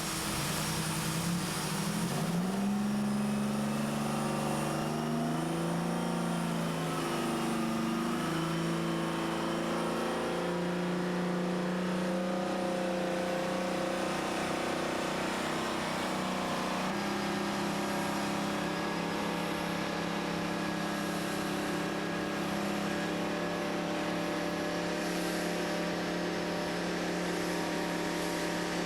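Pushback tug's engine pushing the airliner back. Its drone rises in pitch over the first several seconds, then holds steady, with a slight shift in tone about halfway through.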